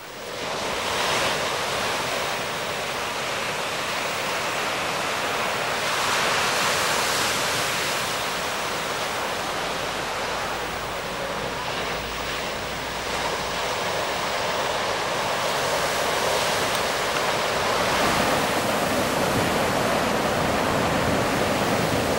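Ocean surf breaking on a sandy shore: a steady rush of white water that swells now and then as waves break.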